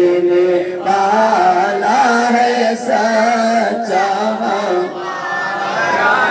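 A man singing a naat solo into a microphone, holding long, wavering melodic notes with only short breaks for breath.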